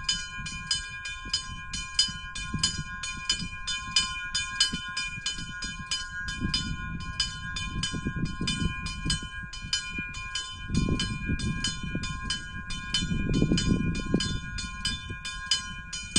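Two small bells of a hermitage's bell gable rung by hand in a quick, even peal, about three to four strokes a second, their tones ringing on steadily between strokes.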